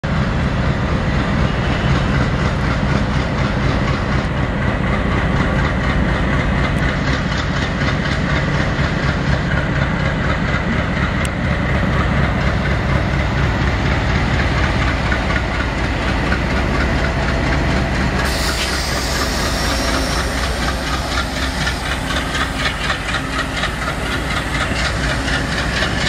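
An Indian Railways WDM-3A diesel locomotive's ALCO 16-cylinder engine working hard as it pulls a passenger train away and passes close by. From about eighteen seconds in, the passing coaches take over with hiss and the clatter of wheels over rail joints.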